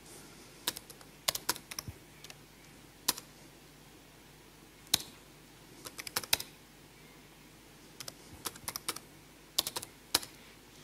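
Keystrokes on a computer keyboard, typed in short bursts of a few clicks with pauses of a second or more between.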